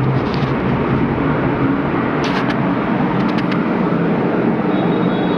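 Loud, steady rumbling noise with most of its weight low in pitch, and a few faint ticks about two and three seconds in.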